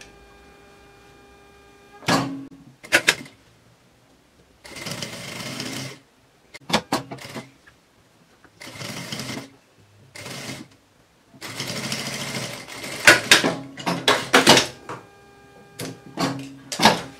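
Industrial lockstitch sewing machine stitching bias binding around a fabric edge in several short runs of a second or so each, with sharp clicks and knocks between the runs.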